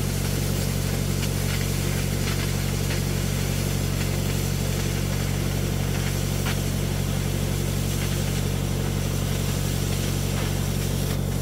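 Oxy-acetylene cutting torch hissing as it cuts through steel plate, with a few scattered crackles and spits, over the steady drone of an idling engine. The spitting and sputtering is the sign of a cut that is not running smooth because the steel is not hot enough.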